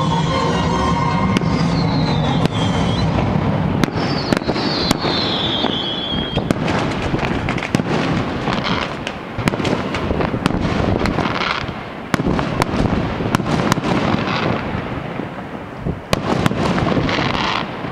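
Fireworks going off in quick succession: dense sharp bangs and crackling, with whistles falling in pitch in the first few seconds. Music plays along at first and stops about three seconds in.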